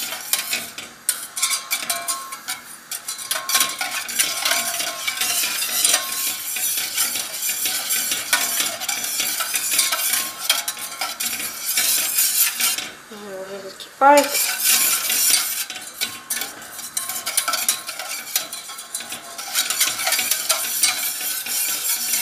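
Wire whisk scraping and clinking steadily against the bottom and sides of a stainless steel saucepan. It is stirring a milk, egg-yolk and sugar custard base as it cooks toward thickening. The stirring pauses briefly about thirteen seconds in.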